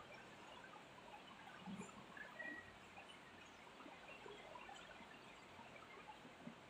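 Near silence: faint room tone with scattered soft scratches and one brief faint squeak about two and a half seconds in, consistent with a marker writing on a whiteboard.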